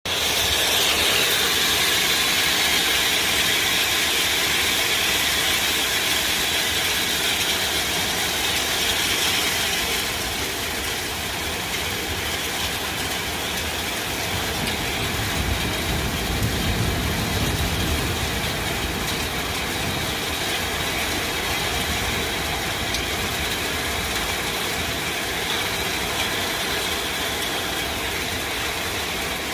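Hailstorm: a dense, steady rattle of hailstones striking, a little quieter after about ten seconds.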